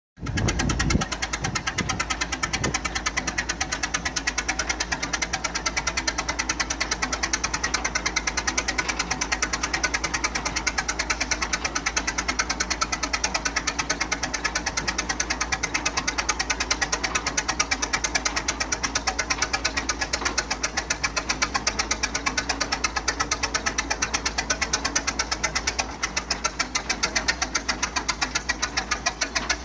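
Restored Keck-Gonnerman vintage tractor's engine running steadily at idle, with an even, rapid beat of firing strokes.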